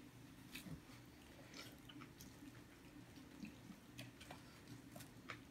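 Near silence: faint scattered clicks and smacks of people eating with their hands, chewing and picking food from a shared spread, over a low steady room hum.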